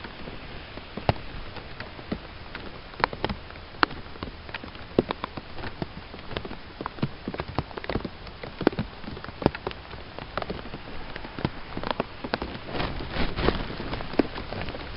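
Steady rain with irregular sharp taps of individual drops landing close by.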